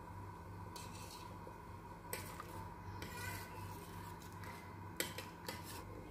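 Metal ladle scraping and clinking against the inside of a pressure cooker in several short strokes, stirring cornflour slurry into thin vegetable soup.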